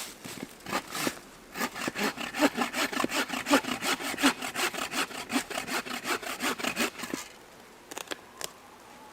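A hand saw cutting wood in a quick, even run of back-and-forth strokes, about three to four a second. It starts about one and a half seconds in and stops about seven seconds in, with a couple of isolated strokes after.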